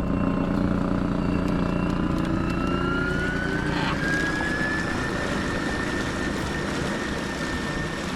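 An engine running and speeding up: its whine rises in pitch for about three seconds, then holds steady.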